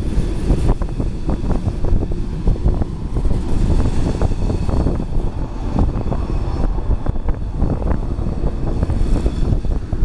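Freight train cars rolling past below: a steady low rumble with frequent clanks and clicks of wheels on the rails, mixed with wind on the microphone.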